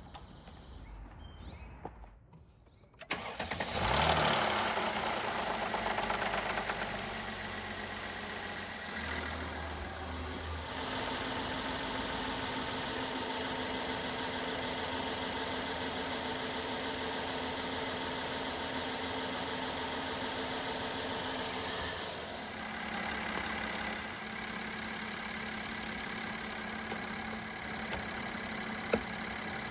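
Mercedes GLK350 engine starting about three seconds in after an oil change: a brief flare in revs, then settling into a steady idle.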